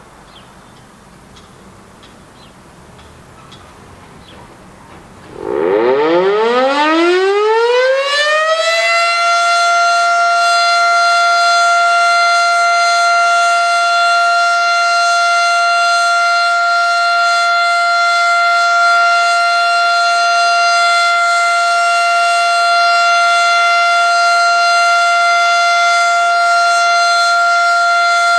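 Federal Signal Model 7A outdoor warning siren starting up during a routine monthly test: after about five seconds of faint background it winds up, its pitch rising steeply for about three seconds, then holds a loud, steady tone.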